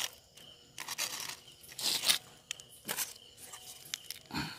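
Rustling and crunching of dry leaves and grass, in several short scraping bursts with a few sharp clicks.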